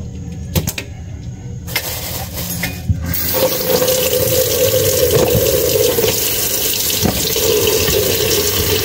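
Kitchen faucet turned on about three seconds in, then water running steadily into the sink, after a few light clicks and knocks.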